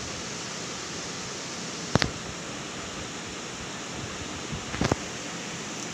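Steady rush of water pouring over a low weir and churning below it, with a sharp click about two seconds in and two more close together near the end.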